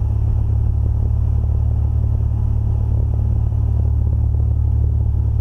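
Cessna 182RG's six-cylinder Lycoming engine and propeller droning steadily, heard inside the cabin on the landing approach.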